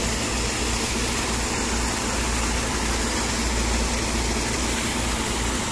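Tractor diesel engine running steadily, driving a 6x6 PTO water pump that is discharging a heavy jet of water. The engine's low steady drone sits under an even rushing noise from the water.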